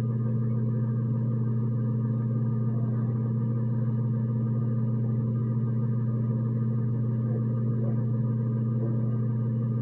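Steady low electrical hum with a buzzy edge.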